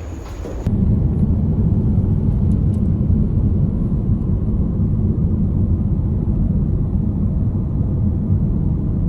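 A vehicle running with a steady, loud low rumble that starts suddenly about a second in.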